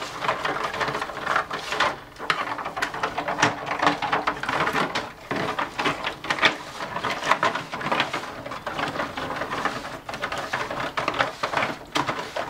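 Wooden spoon stirring vinegar-thinned barbecue sauce in a disposable aluminium foil pan: a quick, continuous run of scrapes and clicks as the spoon works against the thin foil.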